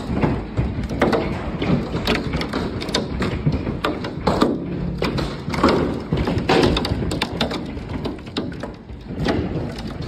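Large hailstones pounding down in a severe hailstorm: a dense, irregular barrage of hard thuds and taps over the steady rush of rain.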